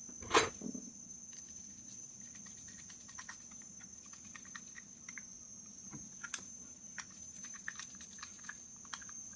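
A sharp knock about half a second in, then faint scattered metal ticks and scrapes of a screwdriver turning the small screw into a Ryobi Arctica II 5000 spinning reel's handle knob, over a steady high-pitched whine.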